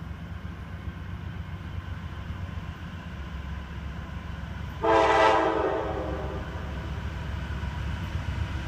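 Diesel locomotive air horn sounding one blast about halfway through, starting sharply and fading after about a second. A steady low rumble from the approaching train runs underneath.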